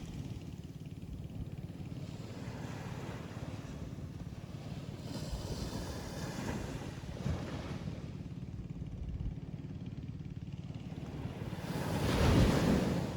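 Ocean surf breaking on a beach: a continuous low rumbling wash, with one wave surging in about five seconds in and a louder wave breaking near the end.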